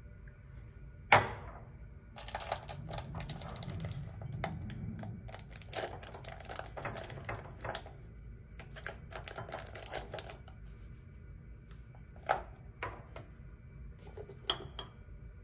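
A ceramic canister lid clinks sharply with a short ring about a second in, then paper-wrapped toiletry packets rustle and tap as they are handled in a ceramic cup. A few more ceramic clinks near the end as a lid is set back on a canister.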